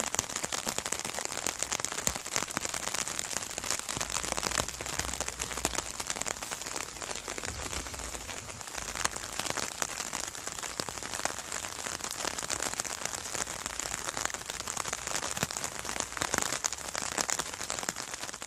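Rain drumming steadily on an umbrella: a dense patter of many drops on the taut canopy.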